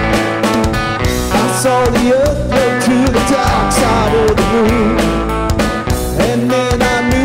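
Live rock band playing: electric guitar over a steady beat, with a man singing lead from about a second and a half in.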